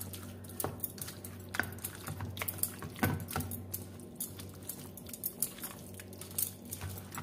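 Hand mixing raw chicken pieces into a thick yogurt-and-spice marinade in a steel bowl: soft wet squelching with irregular small clicks.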